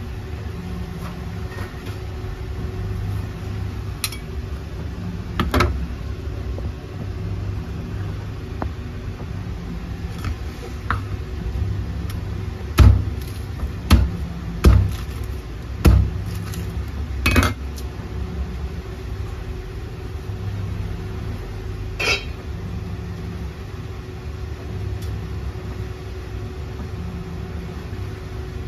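Cleaver chopping ears of corn into pieces on a plastic cutting board: about eight sharp chops, most of them in a quick run near the middle, over a steady low hum.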